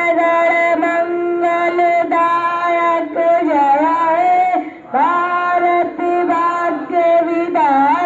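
Singing in long, steady held notes with slight bends in pitch, breaking off briefly about halfway through before the next phrase starts.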